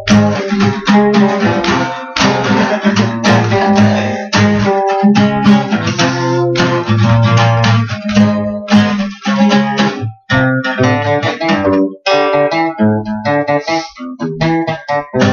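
Guitar music with no singing: chords strummed in a steady rhythm over low bass notes, with a couple of brief stops about two-thirds of the way through.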